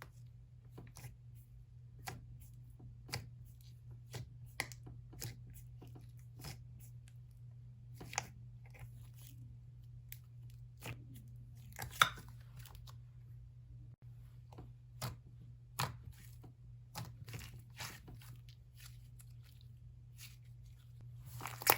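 Slime being poked and stretched by hand, making scattered soft clicks and pops over a faint steady hum.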